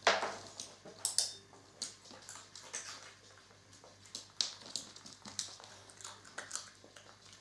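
A small dog stepping in and out of a plastic crate on a wooden floor: irregular light ticks and taps from its claws and the crate, with a sharper click at the start and another about a second in.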